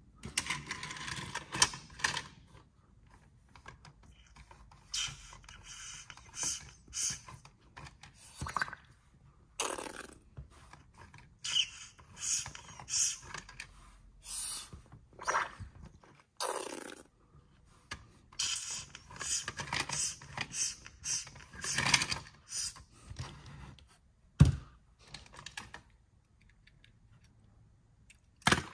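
Plastic toy car wash playset being handled: an irregular string of clicks, scrapes and taps as toy cars are pushed through it and its parts are pressed, with one sharp knock about three-quarters of the way through.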